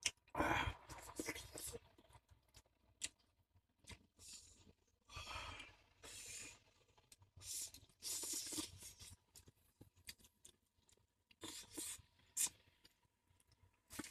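A person eating noodle soup: irregular slurps and chewing, with light clicks of stainless-steel chopsticks against the bowl.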